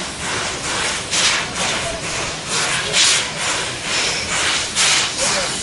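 Steam locomotive working slowly, its exhaust chuffing in rhythmic hissing beats about once a second.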